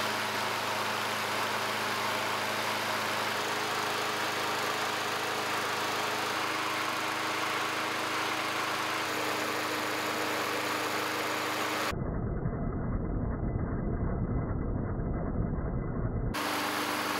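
Small gasoline engine running steadily on its gasoline baseline, its note shifting slightly in pitch a couple of times. For a few seconds near the end the sound turns muffled, with a heavier low rumble, then clears again.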